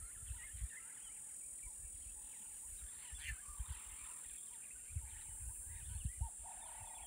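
Faint evening bush ambience: a steady high-pitched insect drone with many scattered short bird calls, and a few low bumps on the microphone.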